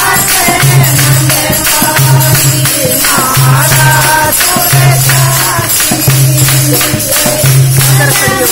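Women singing a Haryanvi folk bhajan to Krishna through a microphone, with a steady beat of handclaps and jingling percussion and a low note pulsing about once a second.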